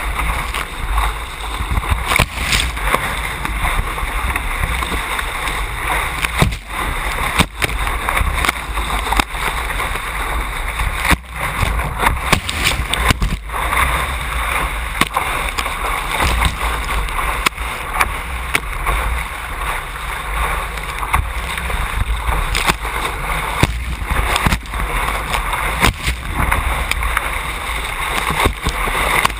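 Water rushing along the hull of an A Class catamaran sailing upwind in about 15 knots, heard from a camera mounted low on the hull, with frequent sharp slaps of waves against the hull.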